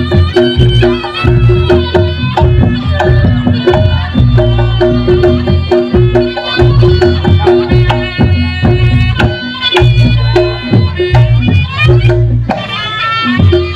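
Reog Ponorogo accompaniment music played loud: drums beating a busy rhythm under a repeated gong-chime tone, with a reedy wind-instrument melody wavering above.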